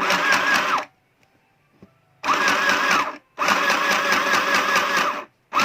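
Mini portable electric sewing machine stitching in short bursts as its foot pedal is pressed and released: four runs, from under a second to about two seconds long, each a fast rhythmic chatter of needle strokes, with a near-silent pause of about a second and a half after the first.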